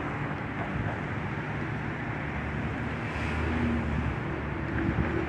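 Steady hum of car engine and road noise, even throughout.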